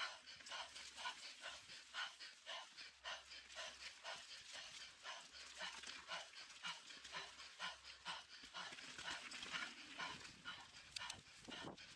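A mountain biker's hard, rapid breathing, about two to three breaths a second: heavy panting from the effort of a climb.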